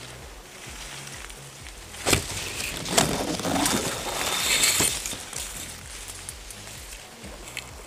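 Tall grass and leaves rustling and brushing against a rifle-mounted camera, with two sharp knocks about two and three seconds in, the second the loudest.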